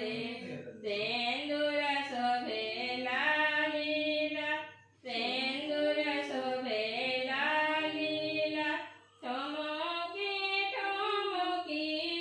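A female voice singing a melody in long phrases, with short breaks about five and nine seconds in, over a faint steady hum.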